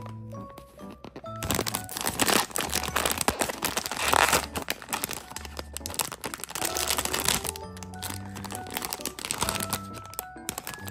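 Plastic and foil blind-box bag crinkling as hands tear it open and pull out a plush toy, loudest about four seconds in, over background music.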